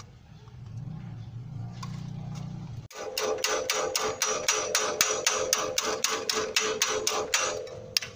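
Claw hammer tapping rapidly on the folded lock seam of a rolled sheet-metal gutter tube held over a steel pipe, closing the seam. The tapping starts about three seconds in, at about five ringing metallic strikes a second, and stops shortly before the end.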